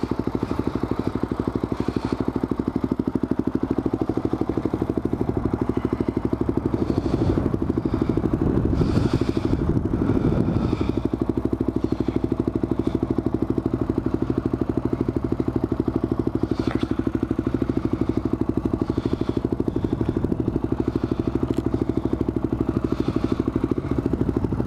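Honda TRX400EX ATV's single-cylinder four-stroke engine running at low speed with a steady, even beat, rising briefly about nine seconds in, as the quad rolls slowly. The engine is breathing through a newly fitted air filter.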